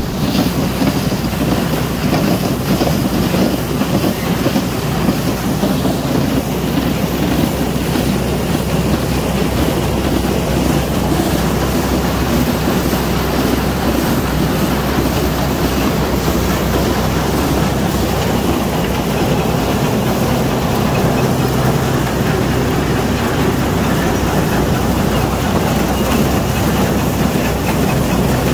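Chain-and-flight corn elevator running, its chain and paddles clattering steadily as it carries ear corn up into the crib, with a tractor engine running under it.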